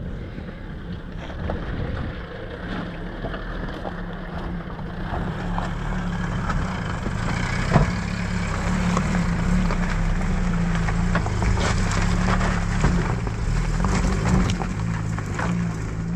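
Fiat Panda 4x4 engine running steadily under load on a rough off-road track, with scattered knocks and clatter from the stony ground and running gear; a sharper knock about eight seconds in.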